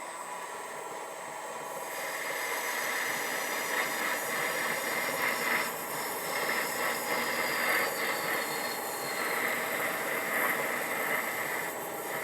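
MN-80 lathe running while a parting tool cuts off a turned oil cup. About two seconds in, a high-pitched cutting noise starts over the steady machine hum. It goes on with brief breaks until near the end.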